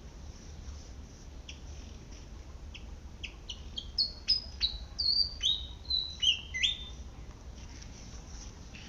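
Malaysian pied fantail singing: a phrase of short, squeaky whistled notes that starts about a second and a half in, steps up in pitch and ends with a few longer, falling notes near seven seconds.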